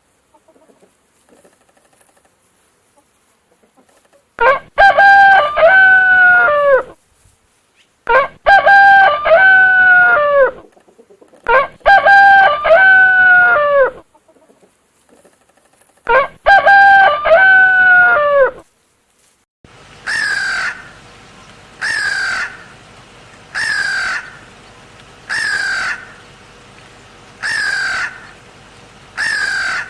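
Rooster crowing four times, each crow a long, loud cock-a-doodle-doo with a falling end. This is followed by a different bird's shorter, quieter call, repeated about every second and a half.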